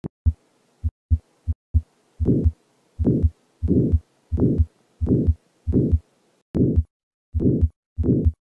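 Stethoscope recording of the heart of a patient with aortic valve sclerosis: a systolic murmur with each beat that peaks early in systole. It opens with a few short knocks, then the beats come regularly, about three every two seconds.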